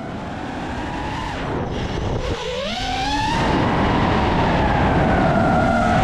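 iFlight Nazgul 5 FPV quadcopter's motors and propellers whining over a rush of air. The pitch dips about two seconds in, then climbs sharply as the throttle is punched and holds high and steady, growing louder.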